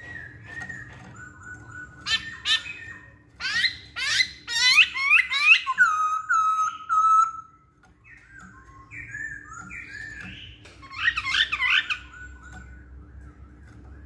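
Black-throated laughingthrush (poksay hongkong) singing loud whistled phrases: quick rising notes, then fast rising-and-falling runs and a held whistle. After a short pause about halfway it goes on with softer notes and another loud burst near the end.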